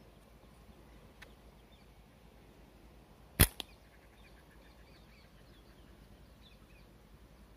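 A slingshot with flat rubber bands is shot once about three and a half seconds in: a single sharp snap of the bands, with a fainter click a moment later.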